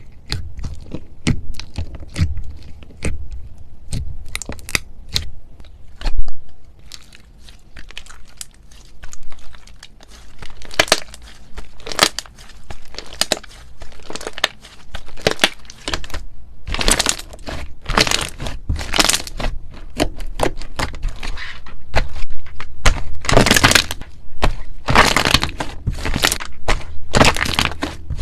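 Slime being squeezed and worked by hand, giving a dense run of crackling, crunching pops that grow thicker and louder in the second half.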